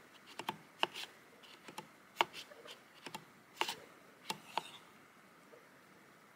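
Wooden spatula stirring melted hard wax in a metal wax-warmer pot, knocking and scraping against the pot in sharp, irregular clicks.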